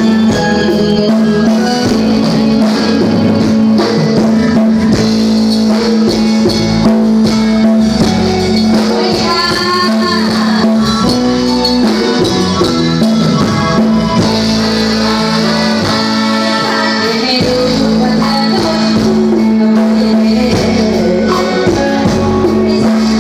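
Loud live Thai luk thung band music over a stage sound system, with a steady held low note underneath busy instrument lines and jingling percussion on top.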